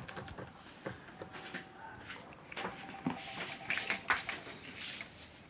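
Wireless intrusion alarm panel's keypad giving two short high beeps near the start, followed by light clicks and handling noises as the panel is worked.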